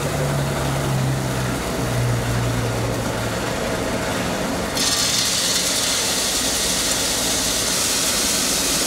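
Electric roasted-peanut skin peeling machine running with a steady hum. About five seconds in, a louder hissing rush joins as roasted peanuts are poured into its hopper and go through the machine.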